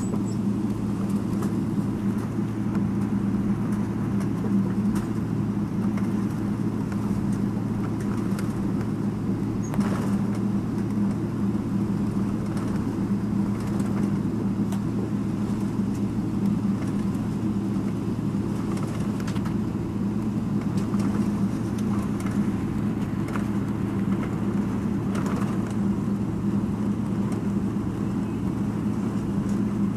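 Steady low hum of a jet airliner's engines and cabin noise, heard inside the cabin as the plane rolls slowly on the ground, with a few faint knocks.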